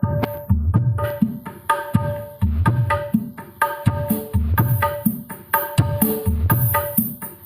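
Percussive dance music with heavy bass drum hits about twice a second, played through a miniature sound system of four 12-inch subwoofers and a small line array of 6-inch speakers with tweeters. A new track starts at the very beginning after a brief cut in the sound.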